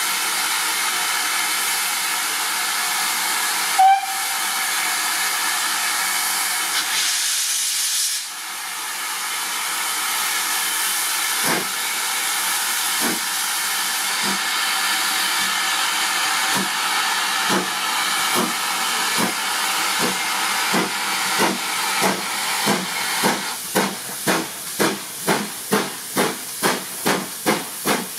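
GWR Manor class 4-6-0 steam locomotive starting its train. A steady hiss of steam is broken by one short whistle blast. About eleven seconds in, slow exhaust beats begin, then grow louder and quicker, reaching about two a second as it accelerates away.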